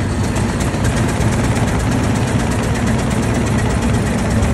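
1903 Cadillac's single-cylinder engine running with a steady, rapid beat, heard from on board the car.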